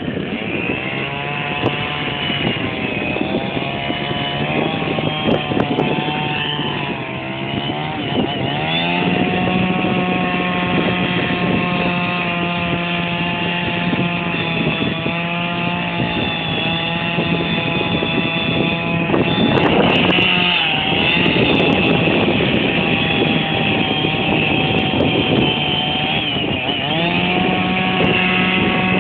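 A small engine running continuously, its speed shifting up and down several times, with a rougher, noisier stretch about two-thirds of the way through.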